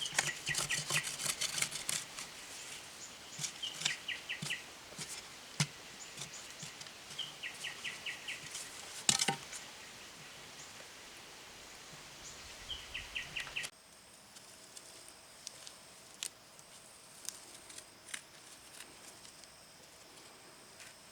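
Outdoor ambience with scattered clicks and knocks, including one louder knock about halfway through. A bird gives a short rapid call of about five notes three times. Then the sound drops abruptly to quieter faint steady high tones with occasional ticks.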